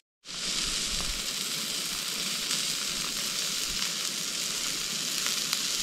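Beef steak and mushrooms sizzling in a frying pan: a steady frying hiss with occasional small pops, starting just after a brief silence.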